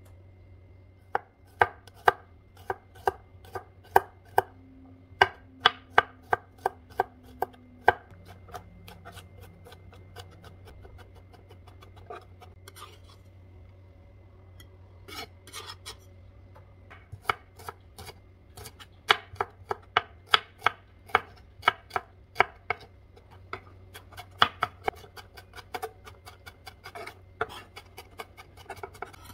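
Chef's knife chopping garlic and shallots on a wooden cutting board: runs of sharp knocks, about two to three a second, with a pause in the middle.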